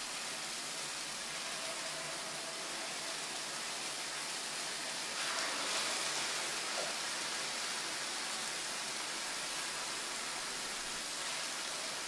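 Jerk-marinated chicken breasts sizzling steadily in hot oil in a skillet over medium heat, briefly a little louder about five seconds in.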